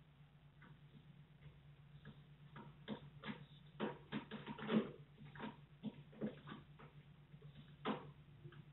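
Kittens' claws scratching and clicking on a cat tree's sisal-wrapped posts as they climb: a run of scratches and taps in the middle, loudest about five seconds and eight seconds in, over a steady low hum.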